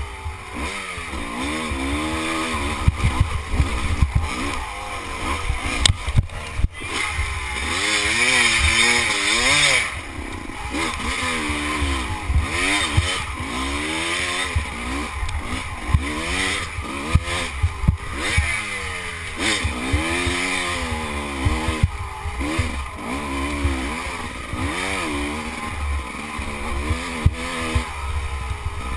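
Dirt bike engine revving up and falling off again and again as the throttle is worked over rough, rocky ground. A heavy wind rumble on the helmet-camera microphone runs underneath, with frequent knocks from the bumps.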